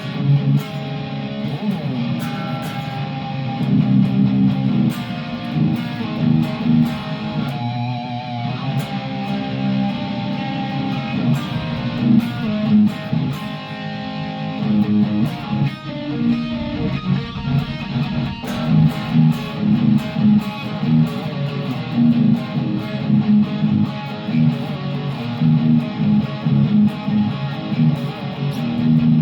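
Electric guitar, a home-built Frankenstrat-style 'Frankie' replica, played continuously through its first sound check: picked notes and chords, with a wavering vibrato passage about eight seconds in.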